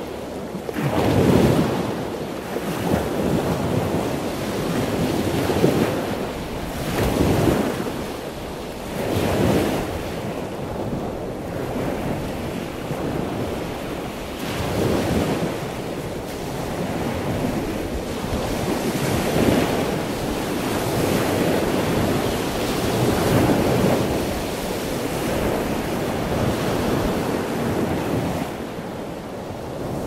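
Loud ocean waves breaking and washing ashore, the surf swelling and falling back in surges every few seconds.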